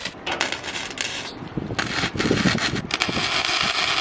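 Arc welder crackling and hissing in bursts while welding galvanized steel, with short breaks where the arc stops about a second in and again near halfway.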